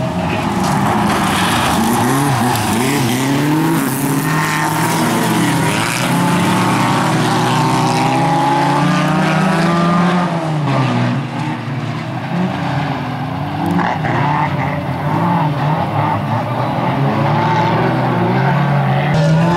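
A pack of Bilcross race cars racing close together, several engines at once revving up and down, their notes rising and falling over one another.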